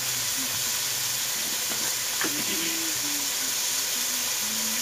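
Chopped onions, tomatoes and green chillies sizzling in hot oil in a frying pan, a steady hiss, as the tomatoes cook down to soften.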